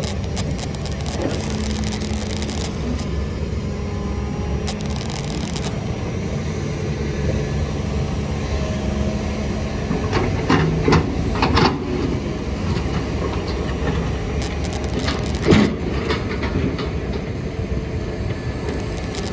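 Heavy construction machinery's diesel engine running steadily, with several sharp knocks and clatters of rock around the middle and one more hard knock a few seconds later.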